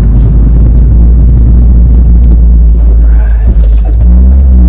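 BMW E46 with a swapped-in N55 turbocharged straight-six, heard from inside the cabin while driving: a loud, steady low engine and road drone. Near the end the engine's pitch dips and rises again.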